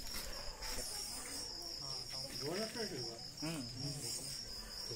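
Crickets chirring in a steady, unbroken high trill, with faint voices talking briefly around the middle.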